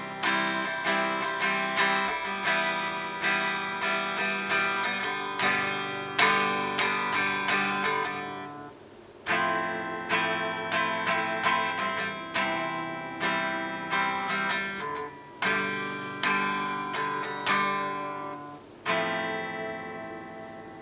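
A guitar playing a short chord piece, each chord strummed or picked several times and left ringing. There are brief breaks between phrases, and the last chord rings out and fades near the end.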